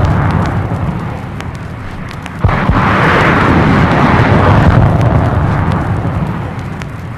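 Large military explosions. The rolling rumble of one blast dies away, then a second blast goes off about two and a half seconds in, and its long, deep rumble slowly fades.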